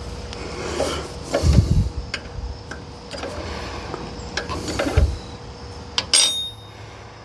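A wrench clicks and scrapes against the oil-fill plug of a cast-iron Kohler engine as the plug is loosened and unscrewed. There are a couple of dull knocks, and a short metallic ring about six seconds in.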